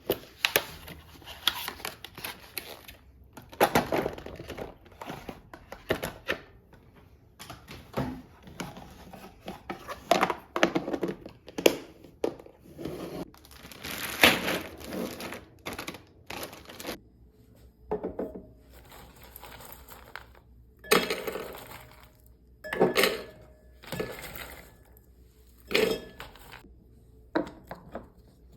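Household items being handled and set down: irregular knocks and clatters of containers, with rustling and crinkling of packaging between them.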